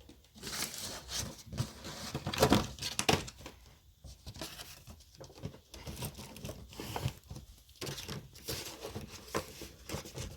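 Irregular crinkling and rustling of things being handled, loudest about two and a half seconds in.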